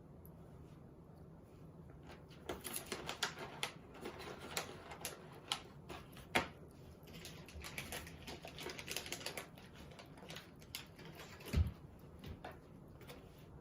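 Hedgehog eating, crisp irregular crunching and clicking as it chews its food, starting about two and a half seconds in and running in quick clusters, with a single low bump near the end.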